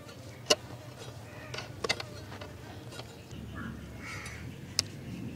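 Mutton fat being sliced on an aruvamanai, the upright curved kitchen blade set in a wooden base, over a steel plate. The cutting gives a handful of sharp, scattered clicks and taps against a faint steady background.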